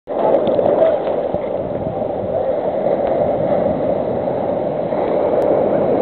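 Sea surf washing in shallow water, a steady rushing noise with no let-up.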